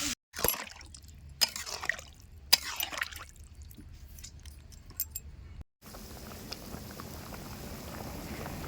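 Liquid being poured and splashing in a few short bursts over the first three seconds or so, then a faint steady hiss.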